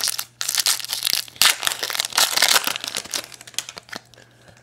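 Foil wrapper of a Topps Chrome baseball card pack being torn open and crinkled in the hands, a dense run of crackling that dies away about four seconds in.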